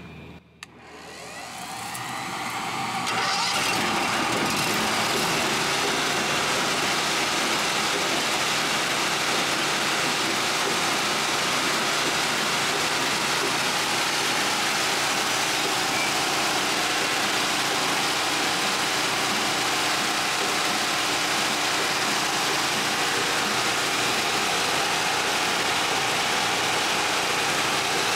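Firewood processor's gasoline engine starting about a second in and coming up to speed over the next two seconds, then running steadily.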